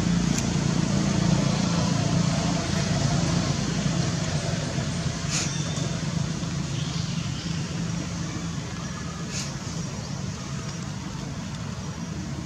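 Steady low motor hum that slowly fades, with a few short sharp clicks.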